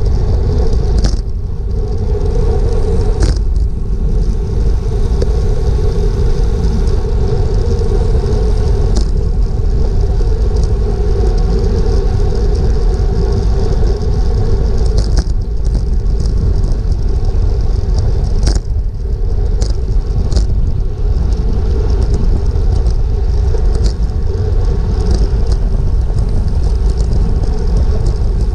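Wind rushing over an action camera's microphone and road bike tyres humming on asphalt at about 25 mph, a steady loud rumble. A few sharp clicks fall here and there.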